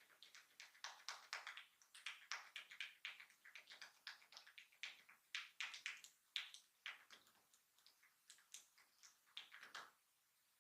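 A barber's hands tapping and patting a client's head during a head massage: quick, irregular taps, several a second, that stop abruptly about a second before the end.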